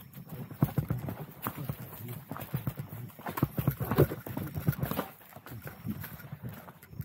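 Hooves of a Japanese native horse clip-clopping at a walk on a gravel path: an uneven run of hoof knocks, several a second.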